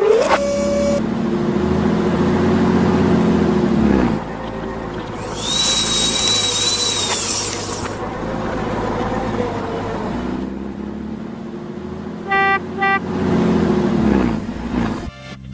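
Heavy vehicle engine revving up and settling back twice, with a high whistling tone in the middle and two short horn toots near the end.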